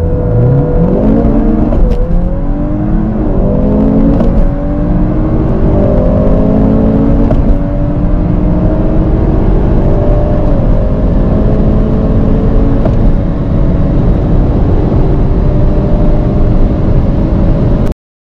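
Turbocharged 2.0-litre four-cylinder engines of a VW Golf 8 R and a Honda Civic Type R at full-throttle acceleration from a standstill, heard from inside the cabin. The engine note rises through each gear and drops back at every upshift. The sound cuts off abruptly near the end.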